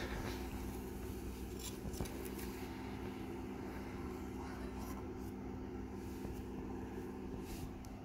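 A steady low hum, with a few light knocks and scrapes as soft kiln bricks are handled and lifted apart.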